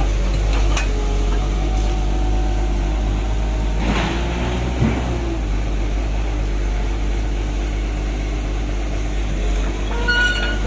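Caterpillar excavator's diesel engine idling with a steady low rumble.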